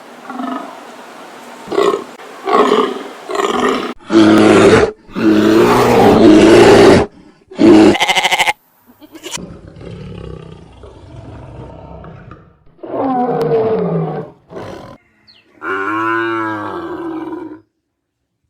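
A string of loud animal roars and calls from several short clips cut together, each starting and stopping abruptly. There is a brief break about eight and a half seconds in and another near the end.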